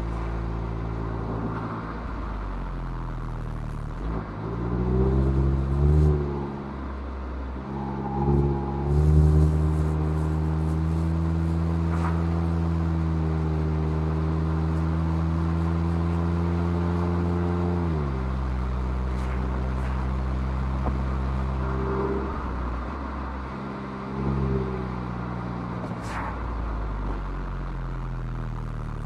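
Mazda MX-5's inline-four engine through its stock exhaust, pulling uphill with the revs rising and falling several times. It holds one steady, stronger pull for several seconds in the middle, then the revs drop sharply and it runs on more quietly with a couple of short rises.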